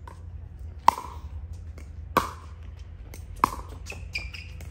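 Pickleball rally: paddles striking the plastic ball three times, each a sharp hollow pock about a second and a quarter apart.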